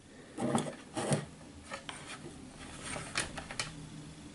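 Rustling and scraping of audio cables being handled, with a few light clicks and ticks.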